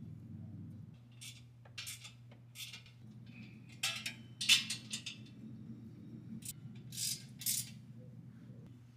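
Hand tools on a stainless steel exhaust under a car: scattered short metallic clinks and scrapes of a wrench and clamp hardware as the exhaust is bolted up, the loudest about halfway through, over a steady low hum.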